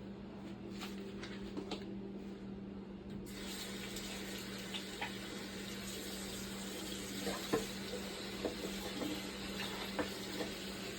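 Kitchen tap switched on about three seconds in and running steadily into the sink, with a few light clinks and knocks over it. A steady low hum runs underneath.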